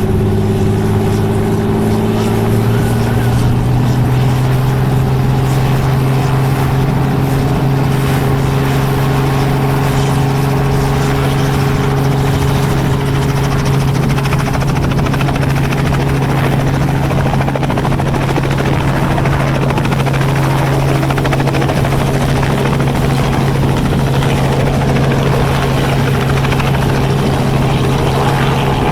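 Helicopter running steadily at close range, its pitch rising slightly about two seconds in and then holding.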